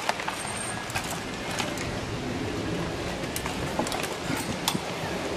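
Mountain bikes riding past on a dirt course: a steady hiss with scattered sharp clicks and rattles.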